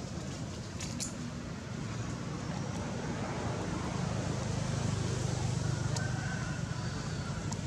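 Steady low rumble of motor traffic, with a couple of faint clicks about a second in and a faint short high tone near the end.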